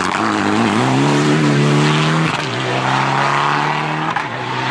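Mitsubishi Lancer Evolution rally car accelerating hard out of a corner, with gravel spraying from the tyres at first. The engine climbs steadily in pitch, with an upshift about two and a half seconds in and another near the end.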